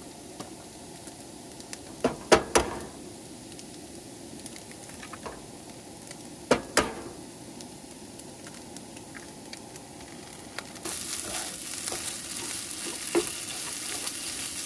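Hash browns, sausage and vegetables frying in a pan on a propane camp stove, with a steady sizzle. Sharp knocks on the pan about two and six and a half seconds in are eggs being cracked on the rim. From about eleven seconds in the sizzle gets louder as the eggs are stirred through with a spatula.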